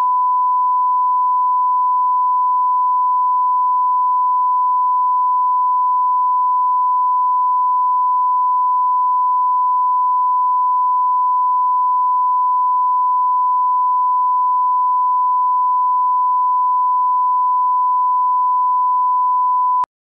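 Steady 1 kHz line-up reference tone, the single pure test tone that runs with SMPTE colour bars at the head of a broadcast tape; it cuts off abruptly near the end.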